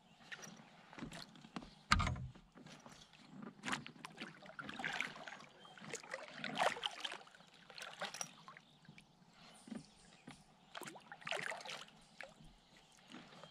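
Kayak paddle strokes dipping and splashing in the water, roughly one a second, with a sharp knock about two seconds in.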